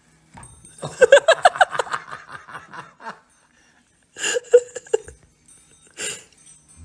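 A person laughing hard in a fast, high-pitched run of ha-ha pulses, then two shorter bursts of laughter near the end.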